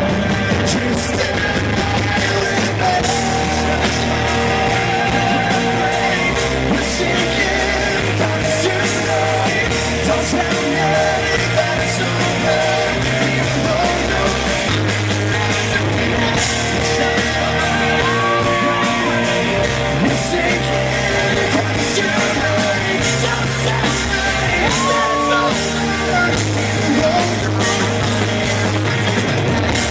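Live rock band playing at full volume (drums, electric guitars and a moving bass line), recorded from the audience, with some singing and yelling over it.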